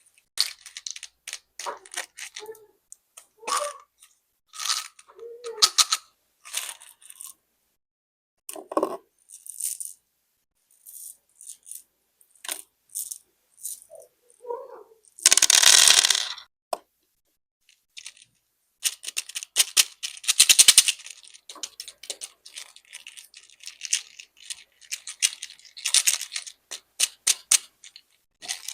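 Small hard-coated candies clattering and rattling as they are handled and poured out, with a run of short clicks and rustles. Midway there are two longer, louder pours.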